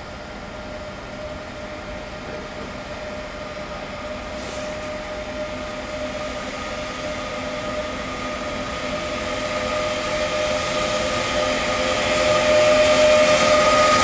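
DB class 152 electric locomotive approaching slowly with a container freight train, growing steadily louder, with a steady electric whine from its traction equipment over the rising rumble of wheels on rails.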